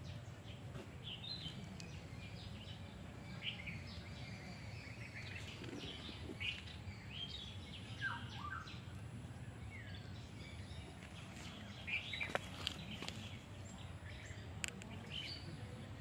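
Small birds chirping in short, scattered calls over a steady low background rumble, with a few faint clicks.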